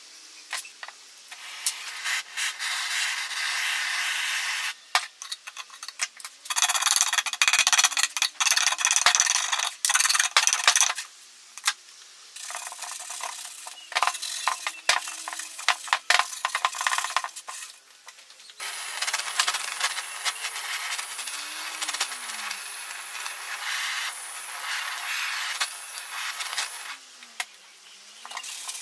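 Wooden crate surface being scrubbed by hand in several long bouts, a rasping rub with scattered sharp clicks and clinks between strokes.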